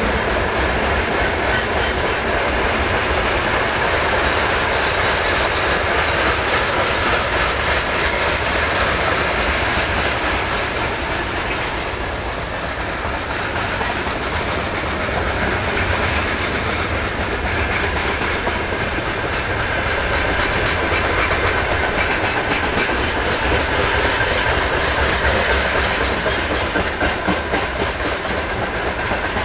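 Loaded freight train of open gondola wagons rolling past, wheels clattering over the rail joints with a steady rolling noise.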